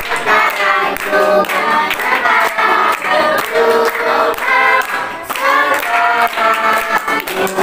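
A group of people singing a birthday song together, clapping along.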